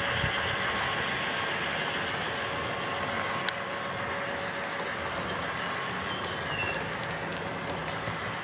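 Model train rolling past on its track: a steady running noise of small wheels on rail with a faint steady hum, and one sharp click about three and a half seconds in.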